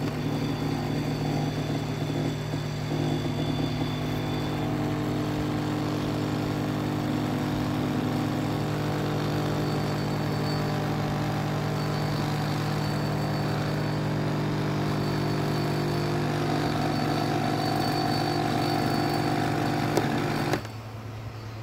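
Espresso machine pump running with a steady hum while a shot pours into a glass, then cutting off suddenly near the end as the shot stops.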